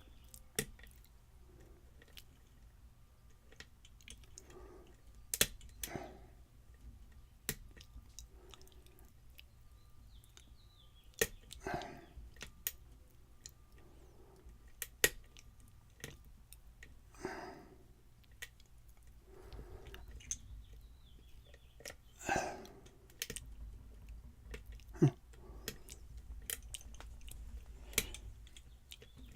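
Lock picking: a metal pick and tension tool working the pins inside a challenge lock cylinder, giving scattered faint clicks and a few short scrapes.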